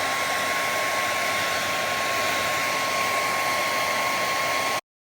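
Hair dryer blowing steadily, a rush of air with a steady high whine, stopping suddenly near the end.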